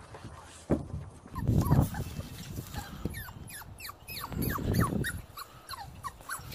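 Puppy whimpering and yipping in short, high cries that fall in pitch, several a second. Low rumbling thumps come under it about a second and a half in and again near five seconds.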